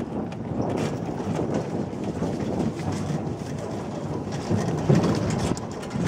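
Motorcycle being ridden along a bumpy grass track, its engine noise buried in a dense, uneven rumble.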